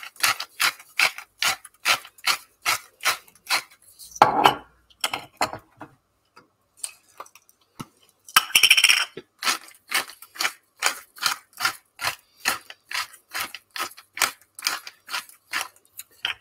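Hand-twisted salt and pepper grinders grinding over a bowl, a rapid regular clicking of about three or four clicks a second. The clicking pauses for a few seconds near the middle, with a brief rustle, then resumes.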